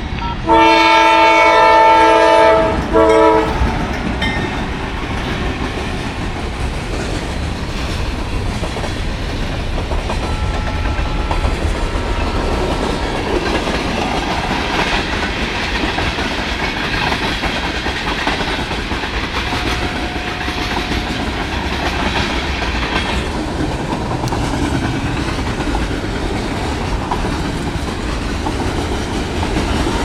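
Norfolk Southern diesel locomotive's air horn sounding a chord, one long blast and then a short one, near the start. The freight train's tank cars and hoppers then roll past with a steady clickety-clack of wheels over the rail joints.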